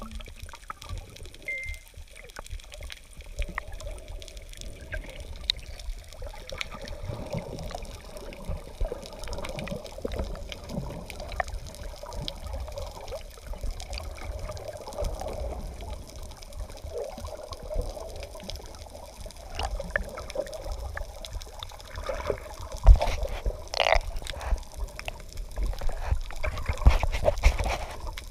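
Underwater sound heard through a waterproof camera housing: muffled swishing and rumbling of moving water, with sharp clicks and knocks near the end.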